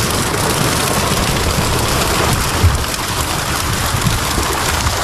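A dense school of milkfish thrashing and splashing at the water surface inside a harvest net: a steady, dense splashing.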